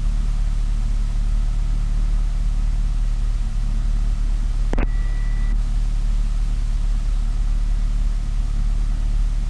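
Cessna 172's four-cylinder piston engine idling, a steady low drone. About five seconds in there is a sharp click from the radio and a short high tone.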